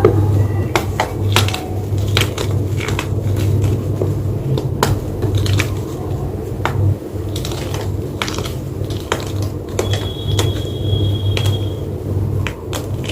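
Block of white gym chalk crunching and crumbling: an irregular run of sharp, crisp crackles, with a steady low hum underneath.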